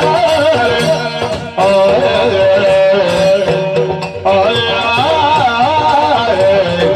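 Live Yakshagana music: a bhagavata singing a song with heavily ornamented, wavering melody over a steady drone and the strokes of the chande drum, with short breaks in the singing about a second and a half in and again near four seconds.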